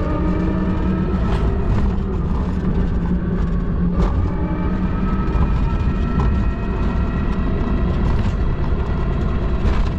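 Electric tricycle under way on a road: a steady electric motor whine that slowly rises in pitch, over wind and road rumble, with a couple of short knocks.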